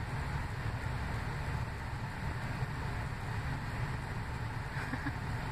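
Steady low rumble of vehicle noise, even and unbroken.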